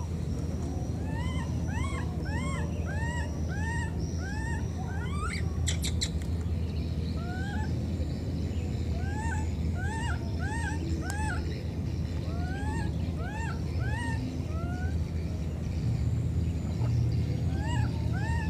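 Baby macaque crying: runs of short arched calls, two or three a second, each rising then falling, with short pauses between runs, over a steady low rumble.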